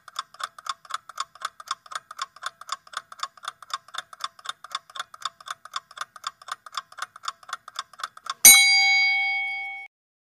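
Clock-ticking sound effect for a quiz countdown timer, about four ticks a second. It ends in a single loud bell strike about eight and a half seconds in, marking time's up; the bell rings for about a second and a half and then cuts off sharply.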